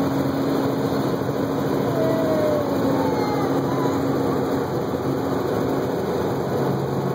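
Steady drone of a helicopter in flight, heard from inside the cabin: a constant rush of noise with a low, even hum underneath.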